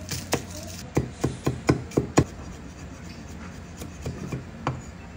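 Knife chopping garlic on a thick wooden chopping board: the blade knocks on the wood in a quick run of about six strokes about a second in, the last ones loudest, then a few lighter taps later.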